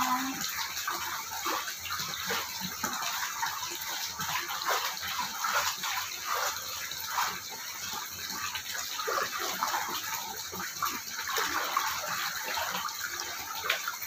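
Water pouring from a pipe into a soaking pool, a steady splashing rush of water falling onto water.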